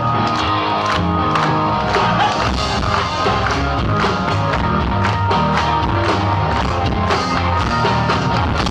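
Live rock band playing loud through a club PA, electric guitars and drums driving a steady beat, recorded from within the crowd.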